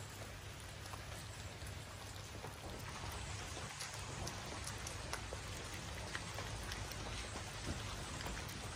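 Steady rain falling, with scattered small ticks of drops, a little heavier from about three seconds in.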